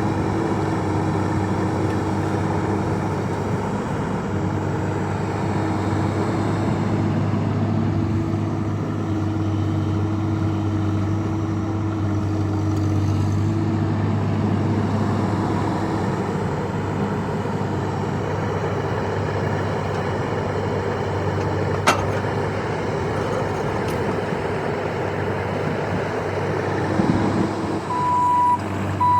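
Bobcat E26 mini excavator's diesel engine running steadily while the machine works, with one sharp click about three quarters of the way through. Near the end the machine's travel alarm starts beeping in an even series, the sign that it has begun tracking.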